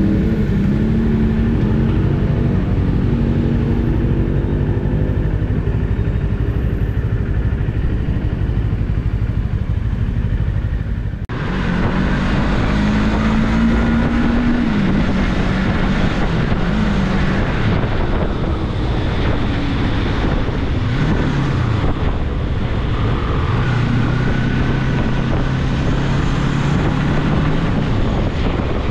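Rusi Cyclone 400S motorcycle engine running while ridden, its note rising and falling with the throttle. There is a brief break about eleven seconds in, after which it carries on.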